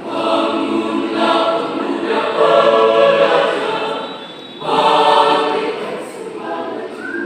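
A mixed four-part choir of sopranos, altos, tenors and basses singing, coming in together at the start. It falls back briefly about four and a half seconds in, then swells again.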